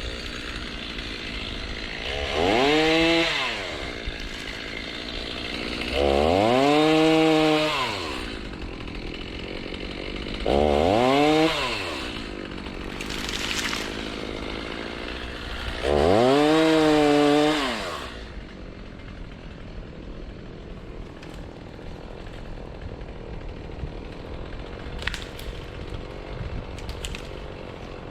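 Two-stroke chainsaw revved up four times, each time rising in pitch, holding briefly and dropping back to a lower running note in between.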